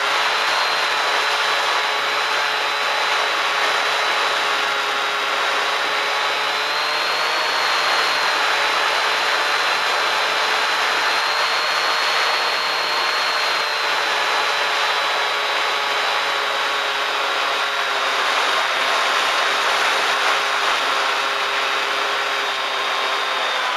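Bixler RC plane's electric motor and propeller running steadily in flight, a whine over heavy wind rush on the onboard microphone. The pitch shifts a little a few times as the throttle changes.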